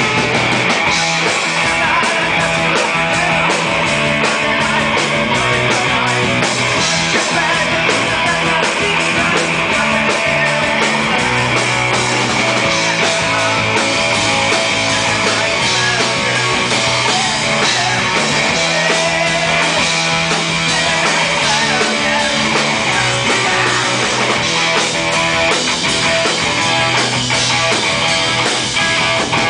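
Punk rock band playing live: loud distorted electric guitar over bass and drums, without a break.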